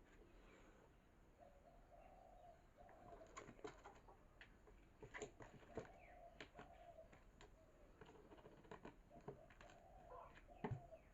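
Faint, repeated low cooing of a pigeon, each coo drawn out for about a second, with a few light clicks between.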